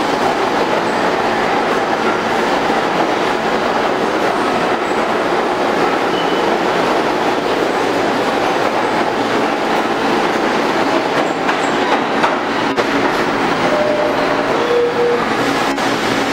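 New York City subway train of R46 cars pulling out of a station and running past on the rails, with a steady rumble and the clatter of wheels over the track. A few short, faint squeals come from the wheels in the last few seconds.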